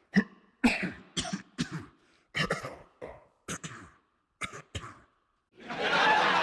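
A person coughing in a string of short, sharp bursts, about ten in all. Near the end a loud, steady hiss begins.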